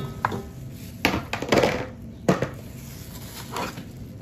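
Sliced raw potatoes tipped from a plastic wrapping into a large metal pan of cut vegetables: a series of soft knocks and short plastic rustles, several spaced about a second apart, the loudest knock at the very end.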